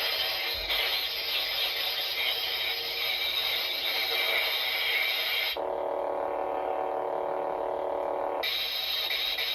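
Electronic lightsaber sound module playing a steady, buzzing blade hum. About five and a half seconds in it switches abruptly to a lower-pitched hum for about three seconds, then switches back to the first sound.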